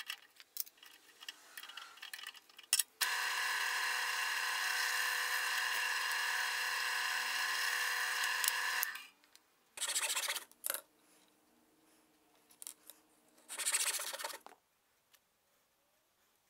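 Drill press: the chuck key clicks as a twist bit is tightened in the chuck, then the motor runs steadily for about six seconds while the bit drills into a small wooden block. Two shorter bursts of noise follow, one near the middle and one near the end.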